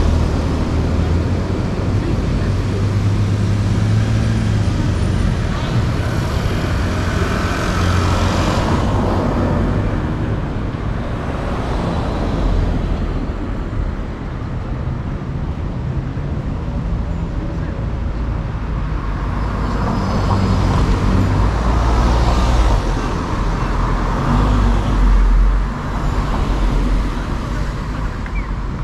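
Road traffic: cars passing by with a steady low rumble, swelling louder twice as vehicles go past.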